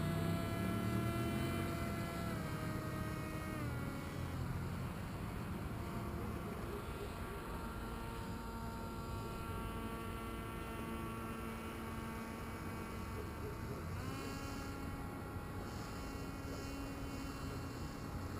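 Electric motor and propeller of the Oxy glider whining steadily. Its pitch drops in two steps in the first few seconds and rises again in one step about fourteen seconds in, as the throttle is changed.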